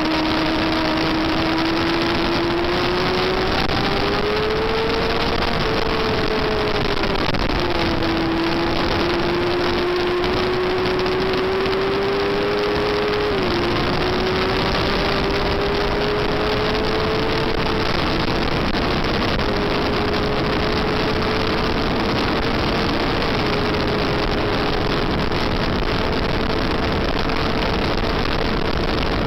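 Yamaha FZR400 inline-four race bike's engine held at high revs, heard from on board with heavy wind rush over the microphone. The engine note climbs slowly, drops sharply about a quarter of the way in and again near the middle, then holds high.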